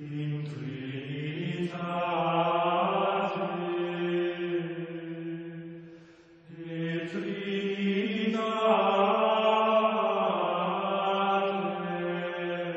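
Gregorian chant sung in slow, long-held notes: two phrases, with a short break about six seconds in.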